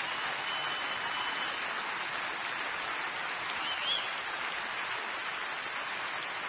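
Large congregation applauding, a steady dense clatter of many hands clapping.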